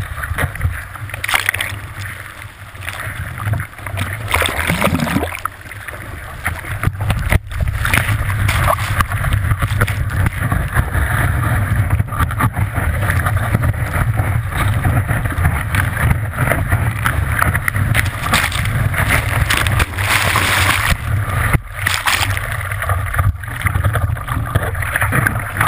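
Surf and whitewater rushing and splashing around an action camera at water level, muffled by its waterproof housing, with a low rumble of wind buffeting the housing. Quieter for a few seconds near the start, then louder and steady from about eight seconds in.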